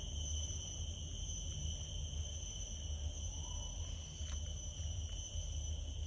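Steady high-pitched drone of insects, with a low rumble underneath and a faint short rising-and-falling call about halfway through.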